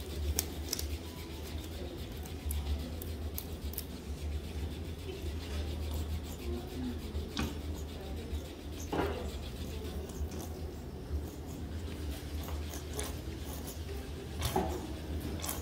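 Close handling noises from a pedicure technician's gloved hands and a plastic bottle: rubbing and rustling with scattered small clicks, over a steady low hum.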